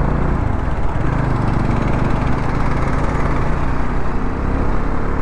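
Bajaj Dominar 400's single-cylinder engine running steadily under way, with wind and road noise.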